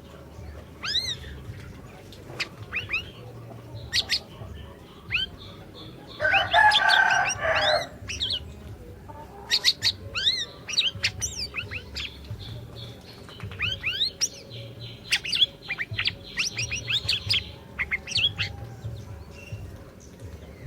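Siri-siri songbird singing a string of short, sharp whistled chirps that sweep quickly in pitch. A rooster crows loudly about six seconds in.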